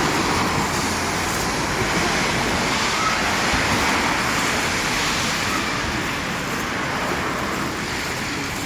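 Road traffic on wet streets: a steady hiss of tyres on wet pavement that swells a little midway, as if a vehicle passes, and eases slightly near the end.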